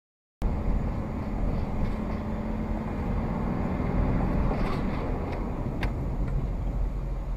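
Engine and road rumble of a moving vehicle heard from inside the cab, starting abruptly just after the beginning. A steady hum runs under it for about three seconds and fades, with a few faint ticks near the middle.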